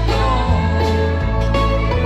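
Live band music: an acoustic guitar strummed over a moving bass line, with fiddle and drums.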